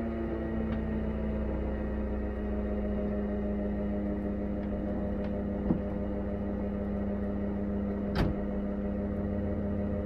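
Steady electric hum from the metre-gauge electric railcar, holding one even pitch over a low rumble. Two sharp clicks cut through it, a light one about five and a half seconds in and a louder one about eight seconds in.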